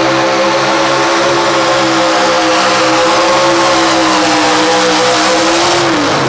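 Light Pro Stock pulling truck's engine at full throttle under heavy load, holding a steady high pitch while it drags the weight-transfer sled. About six seconds in, the engine note falls away sharply as the driver lifts off at the end of the pull.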